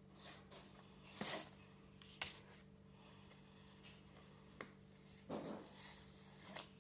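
Handling of an SD card's retail packaging during unboxing: scattered short rustles and a few sharp clicks, the loudest click about two seconds in and a longer rustle about five to six and a half seconds in, over a faint steady hum.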